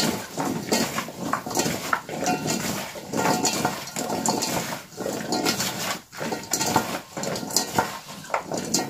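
Hands tossing raw cut potato pieces with spices in a stainless-steel bowl: an irregular run of wet rustling and small clacks of the pieces against each other and the metal, with a brief lull about six seconds in.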